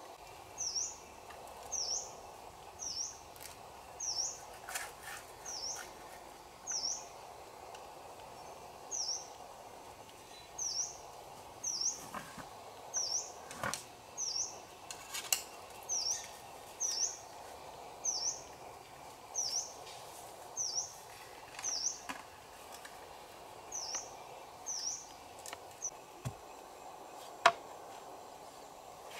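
A forest bird calling over and over, a short high hooked note about once a second, over a steady background hiss. A few sharp knocks of bamboo being handled break in, the loudest near the end.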